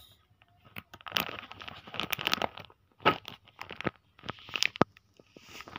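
Clear plastic garment packaging crinkling as it is handled, in several irregular bursts with sharp clicks.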